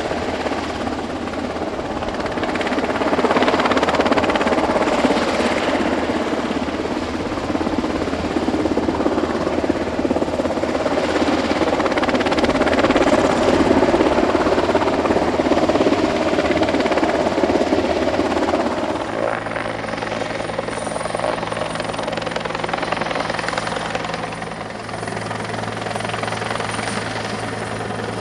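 Rescue helicopter rotor and turbine noise: first a Mitsubishi UH-60J Black Hawk, then, about two-thirds of the way through, an abrupt change to a different helicopter with a steadier low hum and a thin high whine.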